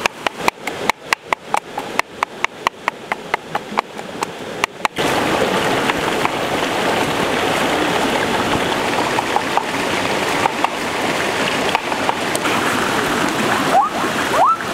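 A rapid run of sharp clicks, about four a second, which stops about five seconds in. After that comes the steady rush of a shallow rocky stream.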